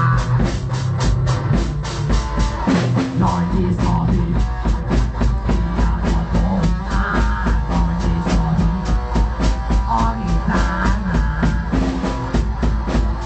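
Metal music: a drum kit beating fast and evenly, about four to five hits a second, over a low bass line and guitar.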